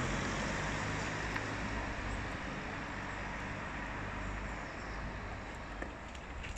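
Steady road traffic noise, slowly fading, with a few faint knocks near the end.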